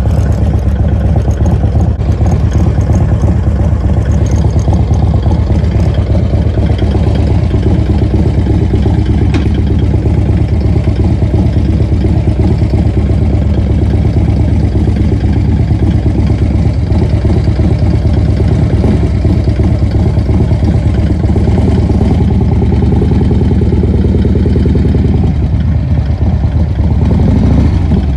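2009 Harley-Davidson Dyna Super Glide Custom's S&S 107-cubic-inch V-twin running loud through a Vance & Hines 2-into-1 exhaust with a steady, rapid throb. The engine note climbs about three quarters of the way through, drops back, and climbs again near the end.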